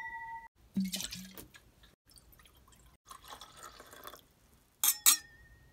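A drink poured into stemmed wine glasses, trickling for about a second. A glass ring fades out at the start and a dull knock comes about a second in. Near the end there are two sharp glass chinks, each ringing briefly.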